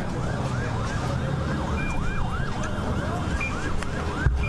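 Emergency vehicle siren wailing in a fast rising-and-falling cycle, about three sweeps a second, over a steady low rumble of background noise; it breaks off near the end.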